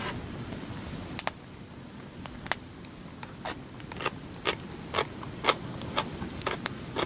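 Wood fire crackling, with sharp irregular pops from the burning split firewood. The pops come more often in the second half.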